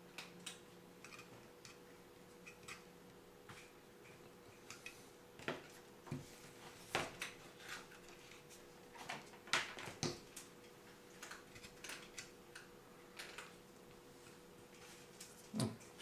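Scattered light clicks and knocks of hard plastic: a plastic cell-holder battery pack and a four-cell holder being handled and pressed together while being hot-glued, over a faint steady hum.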